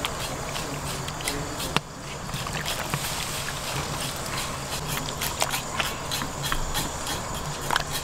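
Pieces of tripe and meat sizzling in a hot cast-iron kazan over a wood fire, with frequent sharp crackles and pops.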